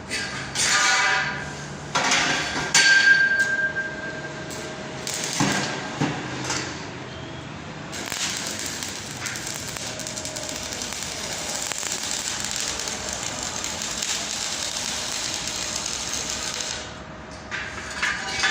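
Metal knocks and clangs in a welding shop, one of them ringing on briefly, followed by a steady crackling hiss of electric arc welding lasting about nine seconds.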